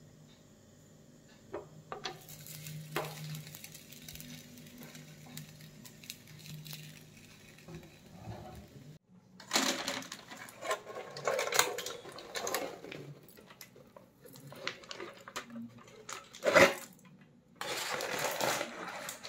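Crumpled aluminium foil crinkling and rustling as it is pulled off a sealed clay cooking pot, opening it after dum cooking, with a sharp knock about two-thirds through. Before that, a faint low steady hum.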